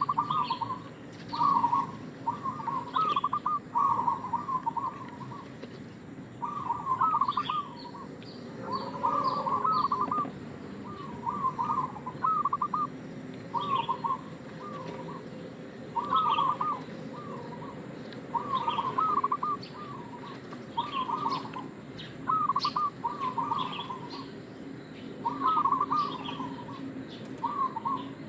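Zebra dove (perkutut) song: repeated phrases of quick, stuttering coo notes, one every couple of seconds. It is a lure (pancingan) recording meant to draw other zebra doves into calling.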